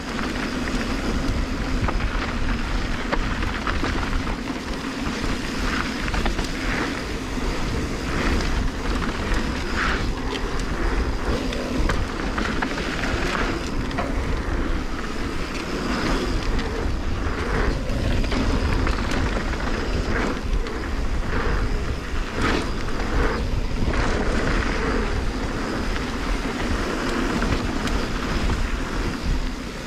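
Mountain bike riding down a gravel flow trail, picked up by a camera on the bike: steady rush of tyres and wind over the microphone, broken by frequent rattles and knocks as the bike rolls over bumps.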